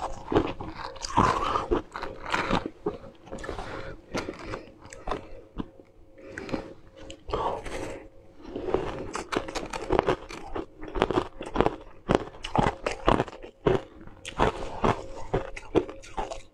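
Close-up crunching and chewing of frozen ice cubes: dense, irregular sharp crunches as a frosted block is bitten and chewed.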